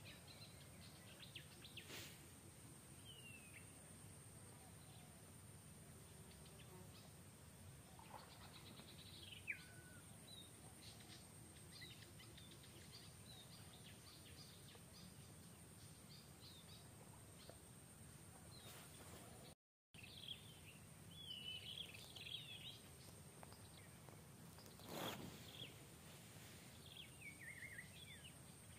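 Quiet forest ambience with scattered faint bird chirps and short falling calls, busier in the second half, over a steady thin high-pitched whine. The sound drops out completely for a moment about two-thirds of the way through.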